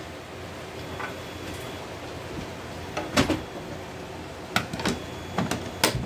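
Plastic fire alarm horn strobe cover being handled and snapped onto its wall-mounted base: a knock about three seconds in, then several sharp plastic clicks in the last second and a half, the loudest at the very end as the cover snaps into place.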